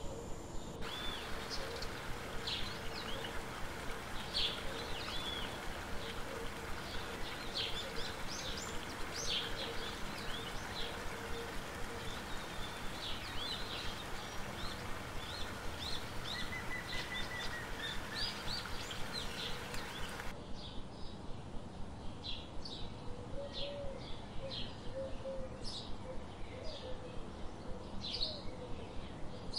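Birds chirping: a run of short, quick chirps and calls over a steady background hiss, with the background changing about two-thirds of the way through.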